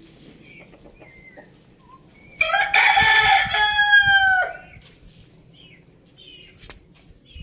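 A rooster crowing once, a long call of about two seconds starting a little over two seconds in and dropping in pitch at its end. Hens cluck softly with short calls before and after it.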